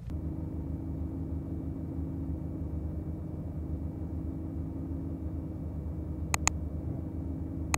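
Steady low hum of a vehicle running, heard from inside the car. About six and a half seconds in come two quick mouse clicks, and right at the end a sharp click starts a bell-like ding.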